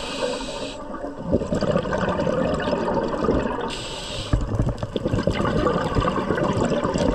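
Scuba diver breathing through a regulator underwater: a hissing inhale at the start and again around four seconds in, each followed by the crackling, gurgling rush of exhaled bubbles.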